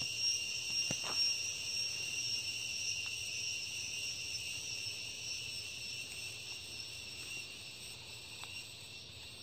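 Steady high-pitched chirring of insects, held at two pitches, with a few faint clicks.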